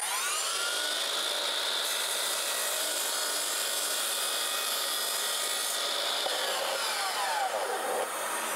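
Miter saw motor whining up to full speed and cutting a 45-degree return on a short upright piece of wood wainscot cap molding, with extra hiss in the middle of the cut. It winds down with a falling whine near the end after the trigger is released.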